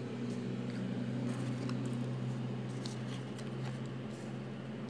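Lenormand cards being picked up and turned face-up on a cloth-covered table: a few faint, light ticks and rustles over a steady low hum.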